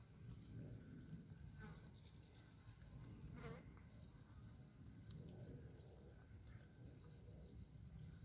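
Faint background ambience: short, high chirping trills and a quick falling chirp about three and a half seconds in, over a low rumble.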